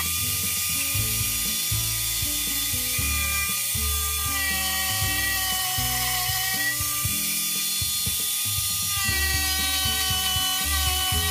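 A table-mounted power saw running as a plywood board is pushed through it, its whine dipping in pitch twice under load, with background music.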